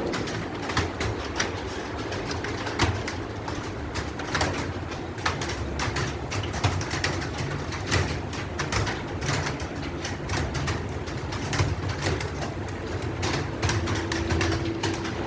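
Computer keyboard being typed on: irregular key clicks, several a second, over a low steady hum.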